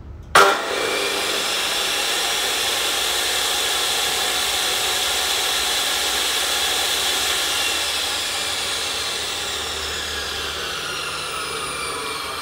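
Makita M2400B 355 mm, 2000 W abrasive chop saw switched on with no blade load. Its motor starts abruptly, with a brief loud burst, and runs with a steady high whine. In the last few seconds the whine falls slowly in pitch as the motor winds down.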